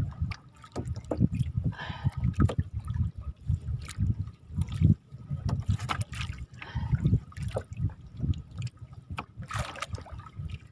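Lake water lapping and trickling against the hull of a small wooden boat, with a few brief splashes about two, six and nine seconds in.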